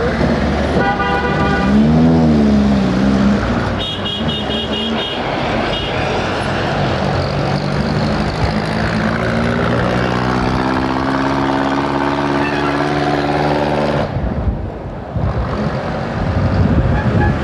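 Motor-vehicle traffic. A horn sounds about a second in, then several short toots about four seconds in, then an engine rises steadily in pitch as a vehicle accelerates.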